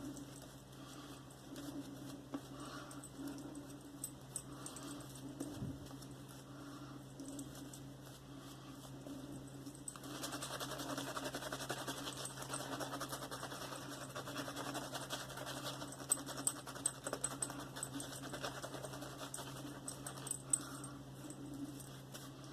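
Silvertip badger shaving brush working Mitchell's Wool Fat soap into a lather with freshly added water: soft wet crackling with many small clicks, getting busier about halfway through.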